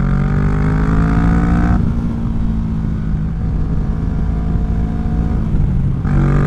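2017 Kawasaki Vulcan 650 S parallel-twin engine through a CS Racing aftermarket exhaust, pulling with rising pitch. The pitch drops abruptly about two seconds in, runs lower and steadier, then climbs again near the end.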